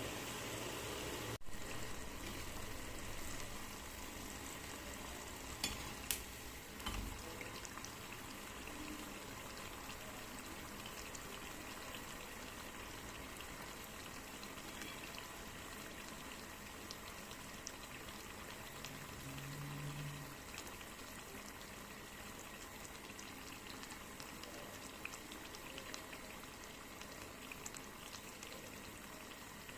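Murukku deep-frying in hot oil in a kadai, with a steady sizzle and bubbling. The oil is bubbling calmly rather than foaming up, which the cook gives as the sign that the murukku is cooked through. A few small clicks come about six to seven seconds in.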